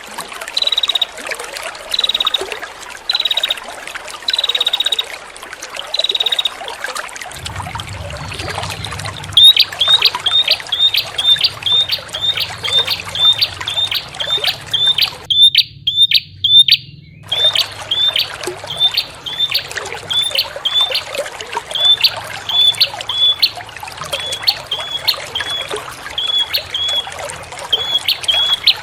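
Prinia (prenjak) calling over steadily trickling water. First come drawn-out high notes about one a second. After a short pause comes a fast run of short high chirps, two or three a second, which cuts out briefly about halfway through.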